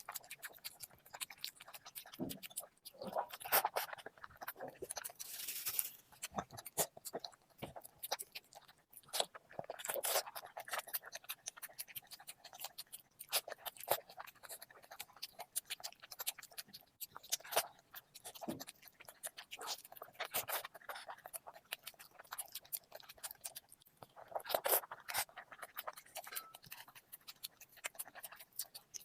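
A person eating close to the microphone: irregular chewing and lip-smacking, dense little wet clicks with louder clusters every few seconds.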